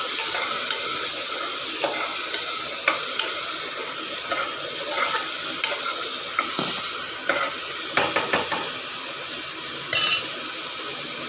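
Onions and green chillies sizzling in hot ghee in a pressure cooker while being stirred, with scattered clicks and scrapes of the stirring spoon against the metal pan and a brief louder scrape near the end.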